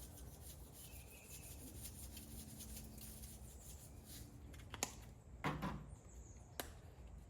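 Seasoning being shaken and rubbed onto beef short ribs: faint scratchy rubbing, with a few sharp clicks and knocks in the second half, the loudest a little past the middle.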